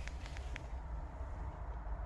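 Low steady rumble with a few faint light clicks in the first half second.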